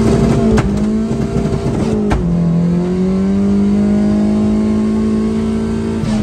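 Honda Civic four-cylinder engine held at raised revs. Two sharp clicks come in the first two seconds, and the revs dip slightly after the second one. The engine then holds steady and starts to fall back toward idle at the very end.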